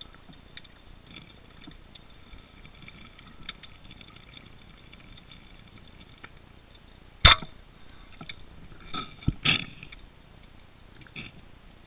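Underwater recording: a speargun fires with one sharp crack about seven seconds in, after a faint steady underwater hiss. A few smaller knocks follow a couple of seconds later.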